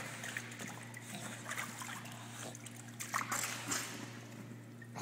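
Pool water trickling and splashing lightly around a wet puppy held at the pool's edge, with a few short splashes about three seconds in. A steady low hum runs underneath.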